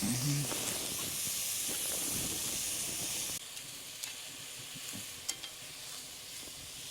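Steady sizzling hiss from a Dutch oven over an open wood campfire. It drops abruptly to a quieter hiss about three and a half seconds in, with a few sharp crackles after.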